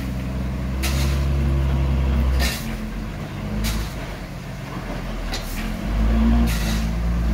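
A loaded dump truck's diesel engine running as it backs up. It is louder for the first two and a half seconds, eases off, and swells again near the end. About five short hisses cut in over it, one every second or two.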